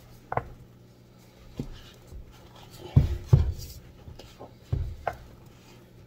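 Wooden spoon stirring and mashing thick semolina fufu in a glass bowl to work out lumps, with dull knocks of the spoon against the dough and bowl every second or so. The loudest two come close together about three seconds in, over a faint steady low hum.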